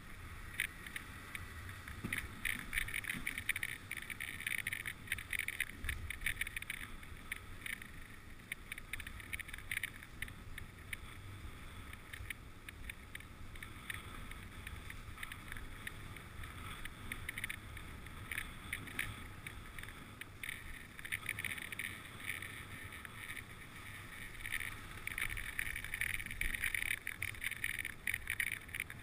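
Runners of a dog sled sliding over packed snow as a husky team pulls it at speed: a steady scraping hiss with a low rumble, swelling a few seconds in and again near the end.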